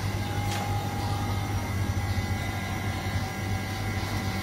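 Freshly squeezed orange juice vending machine humming steadily with a low hum and a faint higher whine. One short click comes about half a second in.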